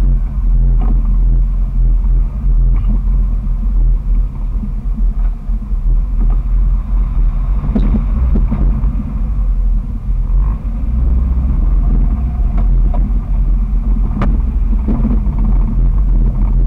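Loud, steady drone from the 2001 Jeep Wrangler TJ's 4.0-litre inline-six engine, running with its muffler removed while the Jeep drives slowly on a sandy trail. A few knocks come through around the middle and near the end.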